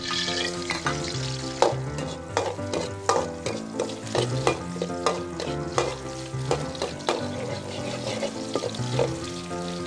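Chopped garlic sizzling in hot oil in a steel wok, stirred with a metal ladle that gives repeated sharp scrapes and clicks against the pan. Background music plays under it.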